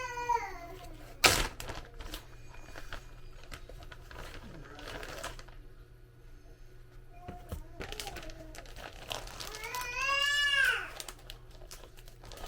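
Household handling noises: one sharp knock a little over a second in, then light clicks and rustling. A small child's high-pitched, wavering cry comes about ten seconds in.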